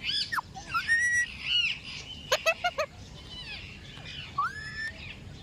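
Indian ringneck parrot calling: a series of short arching calls and chirps, a quick cluster of sharp chirps about two seconds in, and a rising call near the end.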